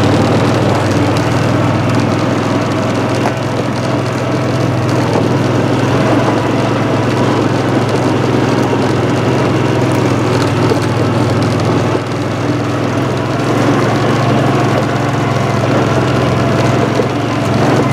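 Engine of an off-road utility vehicle running steadily as it drives along a rough trail, a constant low hum throughout.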